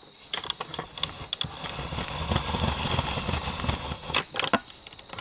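Handling noise from a video camera being moved and re-aimed: scattered sharp clicks and knocks, with a low rumbling stretch in the middle as the camera is shifted.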